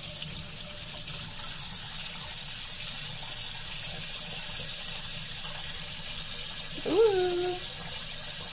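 Kitchen tap running steadily into a stainless steel sink while hands wet and turn a bar of soap in the stream. About seven seconds in, a brief rising vocal 'mm' is heard over the water.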